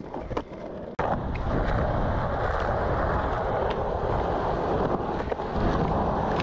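Skateboard wheels rolling over smooth concrete, a steady rumbling roar mixed with wind buffeting the microphone as the board carrying it rides along. It starts suddenly about a second in, after a few faint clicks.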